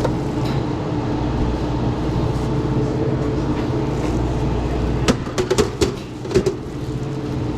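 Steady hum of restaurant kitchen equipment, with a quick cluster of clicks and knocks about five to six and a half seconds in.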